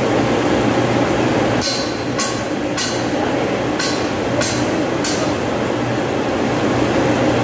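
Steady hum of running machinery, with six short metallic rasps in two sets of three, about half a second apart, from a manual chain hoist being worked to lower a heavy electric motor.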